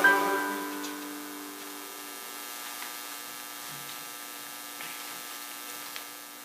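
The last chord of the music fades away over about two seconds. It leaves a steady electrical buzz, mains hum picked up in the recording, with a few faint ticks.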